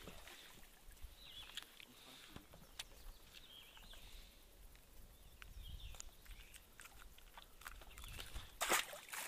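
Quiet outdoor ambience on open water: scattered faint clicks and small handling noises, a light low rumble in the middle, and a short louder rustle near the end.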